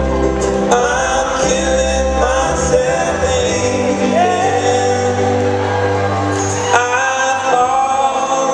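A live acoustic band playing: singing over acoustic guitar, upright bass and cello, heard from far back in a large hall.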